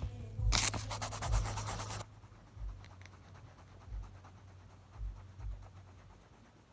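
Graphite pencil scribbling quick curly strokes on paper: loud, fast scratchy rubbing for about a second and a half, then fainter strokes with a few soft low bumps.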